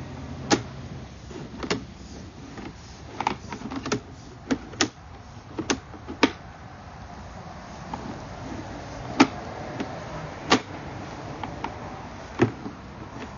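Irregular sharp clicks and knocks, about a dozen, as a sewer inspection camera's push cable is fed through the cleanout and down the sewer line, the cable and camera head knocking against the pipe.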